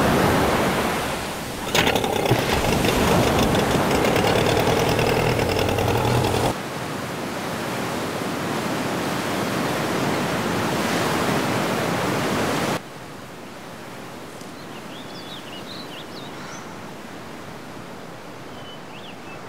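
A steady rushing roar of water bursting from a blasted dam, with a sudden loud crash about two seconds in. The roar drops abruptly in level about six seconds in and again about thirteen seconds in, and faint high chirps sit over it near the end.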